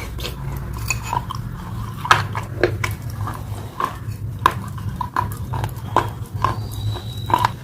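Close-up wet chewing and lip-smacking of a person eating pasta, irregular smacks a few times a second, over a steady low hum.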